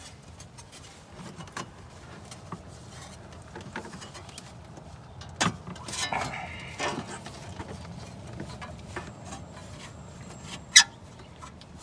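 Hard plastic intake parts and a rubber hose being handled and pushed into place: scattered knocks, rubbing and small clicks, with one sharp, loud click near the end.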